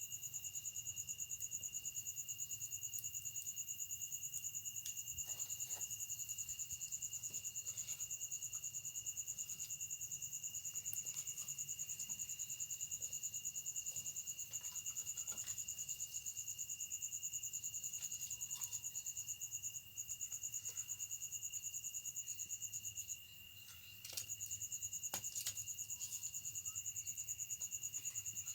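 Night-time chorus of crickets trilling continuously in high, steady tones, with a few faint scattered clicks. The chorus briefly drops out for about a second, about 23 seconds in.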